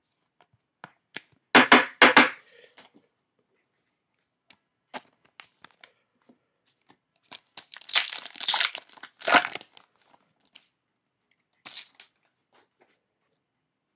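Foil wrapper of a basketball trading-card pack being torn open and crinkled by hand, loudest for about two seconds around eight seconds in, with a shorter crinkle near the end. A few sharp knocks about a second and a half in come from cards being set down on the table.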